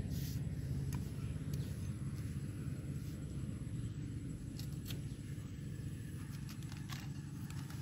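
A curved machete knife cutting into a green coconut's husk and soft shell, giving scattered light clicks and scrapes, over a steady low rumble.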